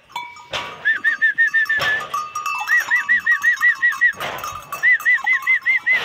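A herd of goats running out of the pen, their bells jangling, while a bird calls in quick runs of repeated rising-and-falling chirps, about five a second.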